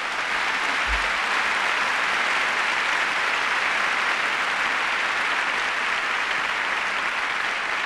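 Large lecture-hall audience applauding, a dense, steady clapping.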